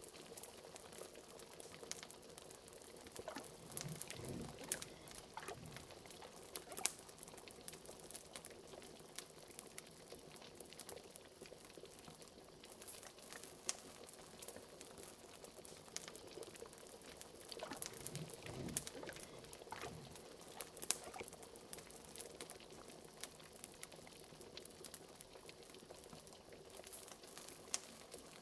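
Liquid bubbling steadily in a pot, like a cauldron at a simmer, with a few deeper gurgling swells, over a fire crackling with many small sharp pops.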